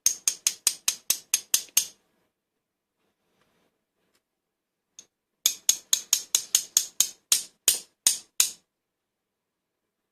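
Two runs of sharp metallic taps on a disassembled Whitco Euro pin-tumbler lock cylinder, about five a second with a short ring after each, knocking its pins and springs loose; the second run starts about five seconds in and slows slightly toward its end.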